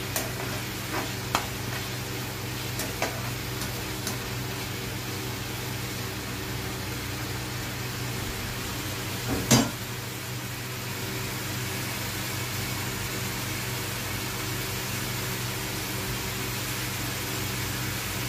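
Chicken gravy sizzling and bubbling in a frying pan. A spatula clicks against the pan a few times in the first few seconds, with one louder knock about nine and a half seconds in, over a steady low hum.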